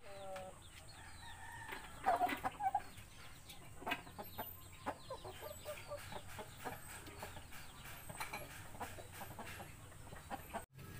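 Native chickens clucking and calling, with short calls loudest about two seconds in and scattered small clicks throughout.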